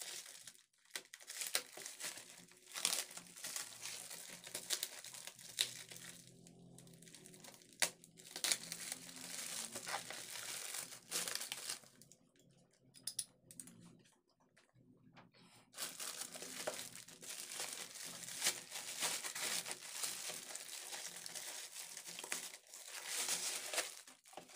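Plastic courier mailer and bubble wrap crinkling and tearing as a parcel is slit open and unwrapped, in irregular bursts with a couple of short pauses.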